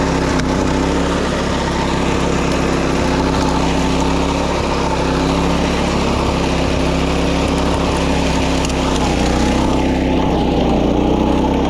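Wing mower's small petrol engine running steadily while cutting grass on a paddy levee, its pitch dipping briefly about nine seconds in.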